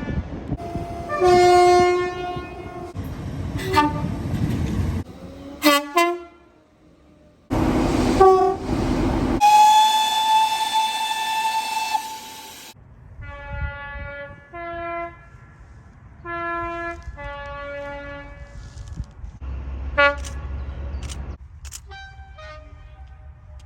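A run of train horn soundings with abrupt cuts between them, over the low rumble of trains. One horn holds a long single note for about three seconds. Two-tone horns sound several alternating high and low notes.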